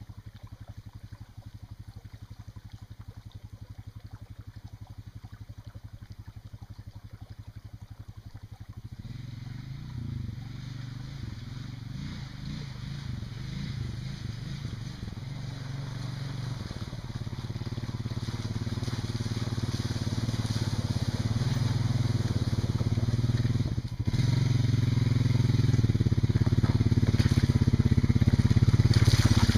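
A creek runs quietly over rocks. About a third of the way in, an ATV's engine comes in from a distance and grows steadily louder as the quad drives down the creek bed toward the microphone, with a brief dip near the end.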